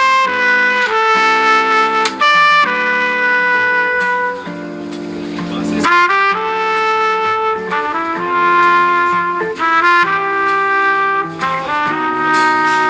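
A Samsung Galaxy A55 ringtone playing a melody of held and changing notes, each rich in overtones, easing into a quieter sustained chord about four seconds in before the tune picks up again about two seconds later.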